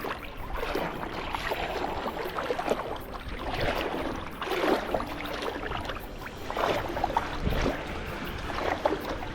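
Small sea waves washing onto a beach, swelling and fading in irregular surges every second or two.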